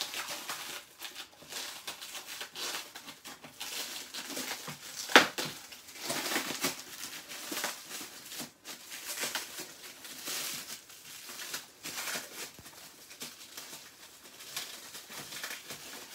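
Clear plastic wrapping on a framed print crinkling and rustling as it is pulled and worked off by hand, with one sharp snap about five seconds in.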